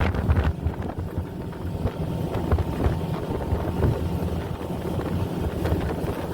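Wind buffeting the microphone over the low rumble of a boat under way.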